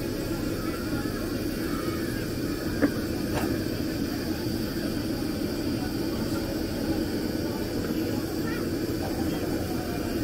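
A steady low drone runs on without a break, with one sharp click about three seconds in.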